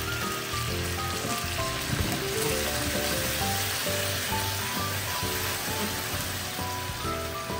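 Chicken and leek yakitori skewers sizzling steadily in sauce in a frying pan, the sauce bubbling as it reduces to a glaze. Background music with a melody plays over it.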